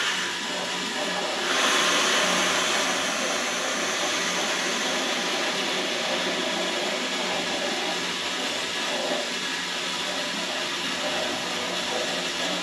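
Air hissing steadily out of a water heater's safety relief valve, held open by its lever as the tank fills with water and pushes the air out. The hiss surges louder about a second and a half in, then settles.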